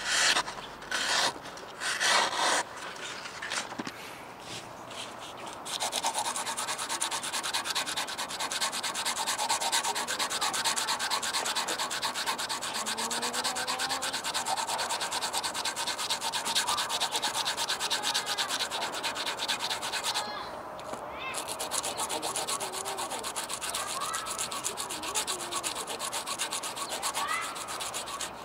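A pocket-knife blade stroked rapidly back and forth on a strip of sandpaper, a dense steady scraping with a short break about two-thirds of the way through. It opens with a few separate louder strokes as the blade slices through a sheet of paper to test the edge.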